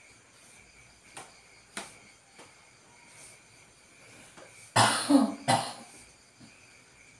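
A person coughing, three quick coughs in a row a little before five seconds in, over the steady chirring of crickets.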